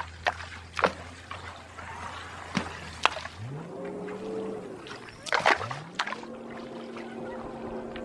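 Rocks thrown into a shallow river, splashing several times in quick succession, to drive fish toward a mosquito net. Behind them a motor's hum rises in pitch twice and then holds steady.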